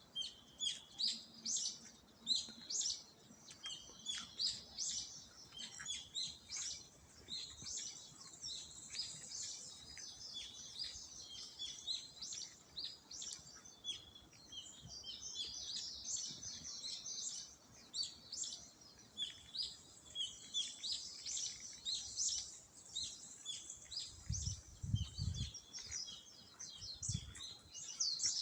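Many small songbirds chirping and calling at once, with quick high-pitched notes overlapping continuously. A brief low rumble comes in near the end.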